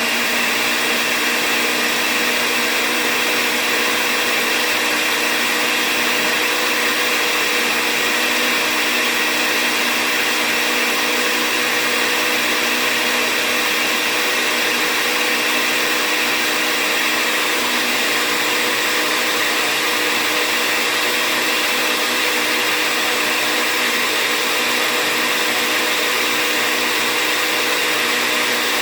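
Countertop blender running steadily on its ice-crush setting, blending avocado, banana and canned coconut milk into ice cream. The motor's pitch holds constant throughout.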